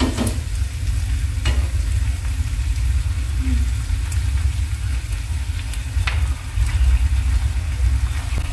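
Pasta-cooking water poured into a hot frying pan of spaghetti, sizzling and hissing. There is a steady low rumble underneath and a few sharp clicks.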